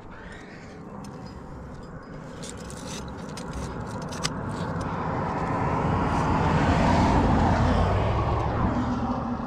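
A road vehicle passing on the road below, growing steadily louder, loudest about seven seconds in, then fading away. A few light clinks of climbing gear on the harness come a few seconds in.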